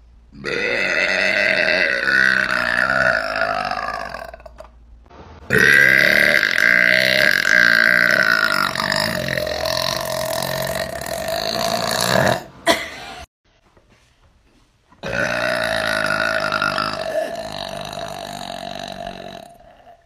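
A young woman's loud, drawn-out burps: three long belches of about four, seven and five seconds, each holding a fairly steady pitch, with short pauses between them.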